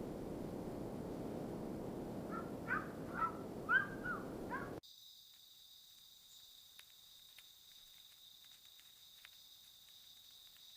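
Layered night ambience: a low steady noise with a run of about six short, pitched animal calls in the first half, then an abrupt cut about five seconds in to quieter, steady chirring of crickets.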